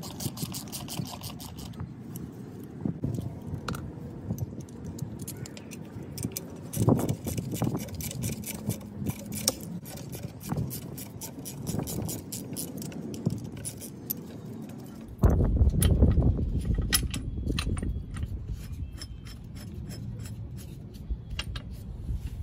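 A ratchet clicks quickly for a couple of seconds while backing off a Harbor Freight MacPherson strut spring compressor. Then come metal clinks, knocks and scrapes as the now-decompressed coil spring's compressor clamps and safety pins are handled. A sudden low rumble comes in about two-thirds of the way through, under more clinking.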